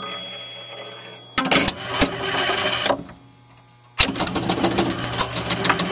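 Electromechanical pinball machine's works clattering during play: bursts of rapid clicking from relays, switches and solenoid coils over a steady low hum, with a short lull about three seconds in before the clicking picks up again.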